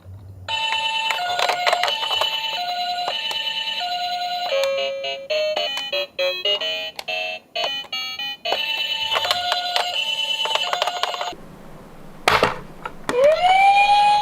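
Electronic imitation of a Japanese ambulance's hi-lo siren, a high and a lower tone alternating. It is broken in the middle by a short electronic jingle of quick changing notes. Near the end it gives way to a wail tone that rises and holds.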